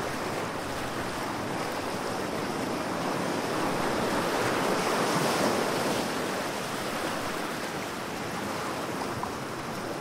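Steady rushing sea-water noise picked up by a camera held underwater, swelling a little around the middle.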